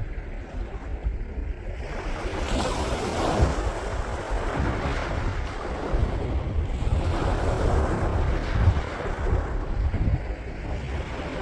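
Sea waves washing onto a sandy beach, the surf swelling and easing twice, with wind rumbling on the microphone.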